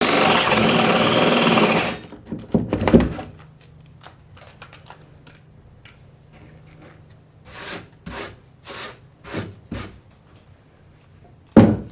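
DeWalt DC970 18-volt cordless drill running for about two seconds, then stopping abruptly. Scattered knocks and clatter of handling follow, with one sharp knock near the end.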